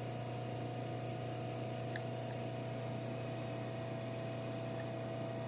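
Micro-hydro plant running: the Pelton and Turgo turbines on one shaft driving a 30 kVA Marathon generator at 1800 RPM. A low, steady hum with a couple of fainter higher tones over an even hiss, unchanging throughout.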